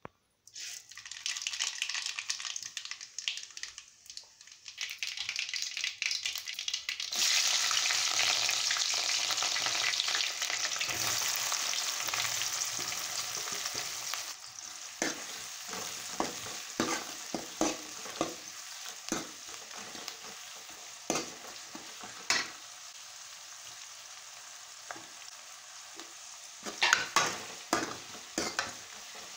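Chopped onions sizzling in hot oil in a metal kadai, the sizzle getting much louder about seven seconds in. From about halfway, a steel ladle scrapes and knocks against the pan in quick repeated strokes as onions, green chillies and curry leaves are stirred, with louder knocks near the end.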